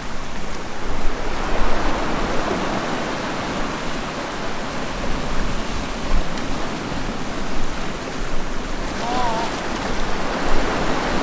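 Sea surf washing against a rocky shore, with wind noise, as a steady loud rush.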